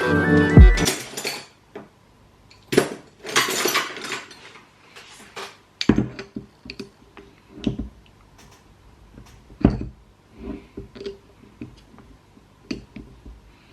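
Scattered metal clinks, taps and short scrapes of a flathead screwdriver and small parts, worked against the carbon-caked exhaust power valve flap of a Honda CR125 two-stroke engine to pry it out. Background music ends about a second in.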